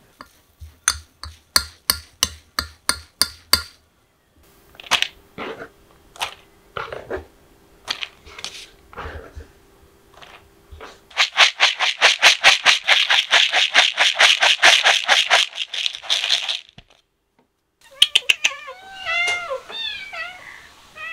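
Light clicks and knocks of food and bowl being handled, then dry cat kibble rattling in a bowl for about five seconds midway as shredded chicken is stirred in with fast strokes. Near the end, cats meow over and over.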